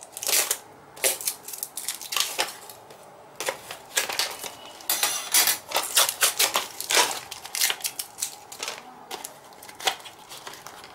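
Packaging being opened by hand: irregular crinkling and rustling of a box and clear plastic wrap, with many sharp clicks and taps.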